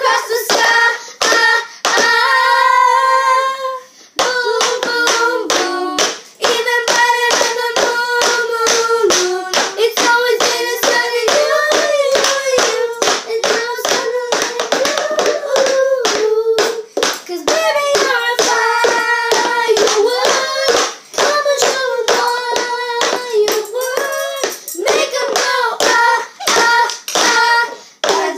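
Girls singing together while rhythmically tapping, slapping and clapping plastic cups on a wooden floor in the cup game, the taps falling in a quick, even pattern under the tune. A few seconds in, the tapping pauses under one held sung note.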